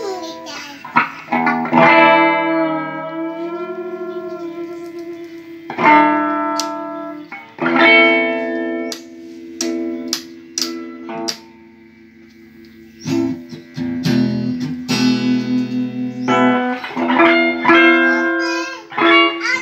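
Les Paul–style electric guitar with a Bigsby vibrato tailpiece being played: ringing chords whose pitch wavers as the vibrato arm is worked, then picked notes and strummed chords with short pauses between.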